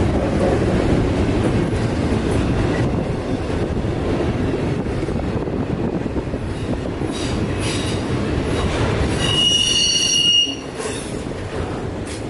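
Double-stack intermodal container cars rolling past close by on a curve, a steady rumble of wheels on rail. About nine seconds in, a high wheel squeal rings out for about a second and cuts off suddenly, typical of wheel flanges grinding on curved track.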